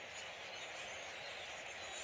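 A very large flock of birds calling all at once, merging into a dense, steady chatter of many overlapping chirps.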